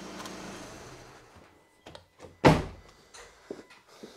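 2012 VW Passat 2.0 diesel engine idling steadily without its auxiliary drive belt, free of the earlier ticking because the seized AC compressor is no longer driven, then shut off about a second in. About two and a half seconds in comes a single loud thud of a car door closing, with a few light clicks.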